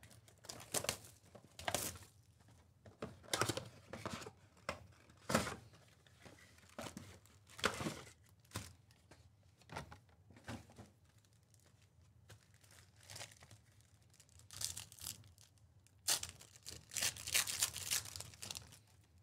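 Plastic wrapping and trading-card pack wrappers being torn open and crinkled in irregular short rips, with a longer run of tearing and crinkling near the end.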